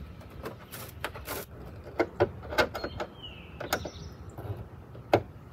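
Irregular light clicks and taps of a hand screwdriver against a license-plate screw and the metal plate and frame, as the screw is worked at by hand.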